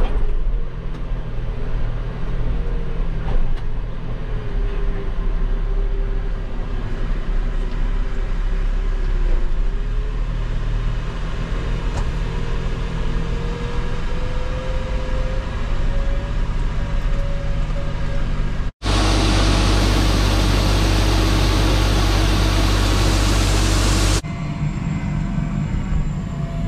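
A heavy farm-hauling vehicle's engine runs steadily, with a tone that dips and then slowly rises. About 19 s in it cuts to louder, denser steady machinery noise, and near the end it cuts back to a quieter engine.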